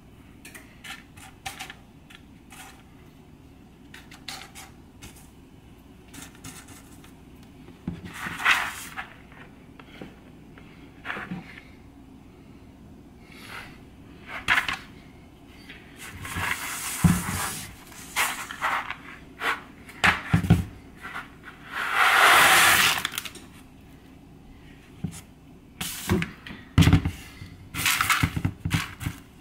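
Dry pinto beans being handled on a plastic mat: scattered small clicks as they are pushed and picked through, then several rattling pours as they slide off the mat into a plastic colander, the longest about two-thirds of the way in.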